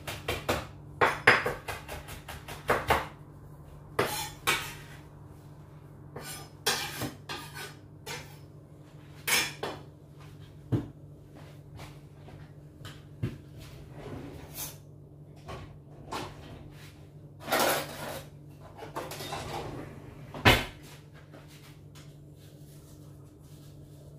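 A kitchen knife chopping apple pieces on a wooden chopping board: a quick run of knocks in the first three seconds, then scattered single knocks and a few short scrapes.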